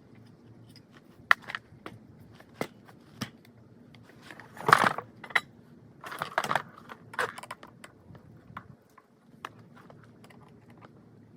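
Small hard objects being handled: scattered clicks and knocks, with a louder rustling scrape about five seconds in and a cluster of clatters just after.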